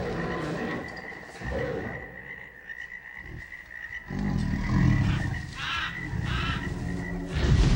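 Dinosaur sound effect of heavy, booming giant footsteps over a jungle ambience of croaking frogs and a steady high chirring drone. A small thud comes about a second and a half in, a big booming thud follows just past the middle, and another starts near the end.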